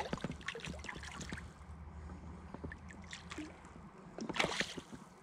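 Small splashes and sloshing of water as a hooked trout thrashes at the surface and is drawn into a landing net held in a shallow stream, with a louder flurry of splashing about four and a half seconds in as the fish goes into the net.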